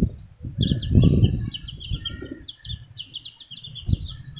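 Many small birds chirping in rapid, high-pitched peeps, several a second, with low rumbling knocks and handling noise underneath, loudest about a second in.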